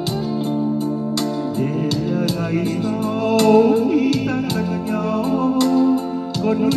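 A Vietnamese ballad: a sung melody comes in about a second and a half in, over held chords, guitar and a steady light ticking beat.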